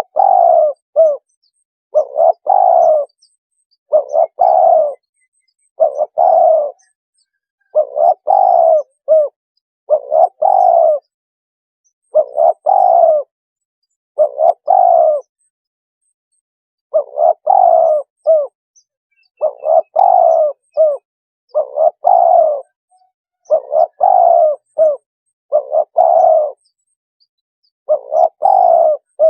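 Spotted dove cooing over and over, a short phrase of several coos about every two seconds, with one longer pause near the middle. This is a lure call for drawing spotted doves in.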